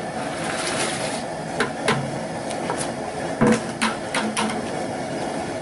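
Live crayfish being tipped from a plastic bucket into a pot of boiling water on a propane cooker, with a series of sharp clatters and knocks, the loudest about three and a half seconds in, over the steady rush of the propane burner running underneath.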